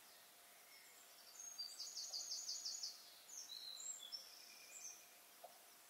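Faint bird song over quiet room tone: a quick trill of high chirps, then a few scattered higher notes.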